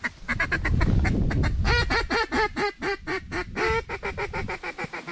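Duck call blown in a fast, even run of short quacks, about five a second, calling to passing ducks. A low rumble sits under the quacks about a second in.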